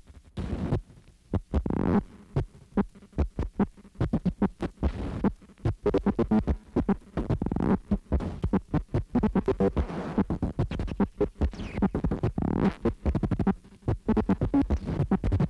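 Sound drawn by hand directly onto the optical soundtrack of 35mm film: an irregular series of sharp clicks and pops with low buzzing throbs, sparse at first and growing rapid and dense after about four seconds.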